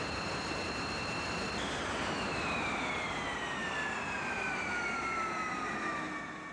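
Jet engine whine over a rushing roar. A steady high whine gives way, about a second and a half in, to a whine that falls slowly and steadily in pitch.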